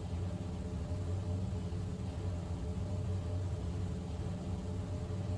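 Steady low drone of a Convair B-36 Peacemaker's engines in flight, with a faint hiss above the rumble.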